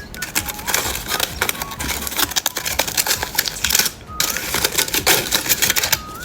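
Close-up crackling and crunching of candy being eaten and its wrapper handled: a dense, irregular run of sharp clicks, pausing briefly about four seconds in.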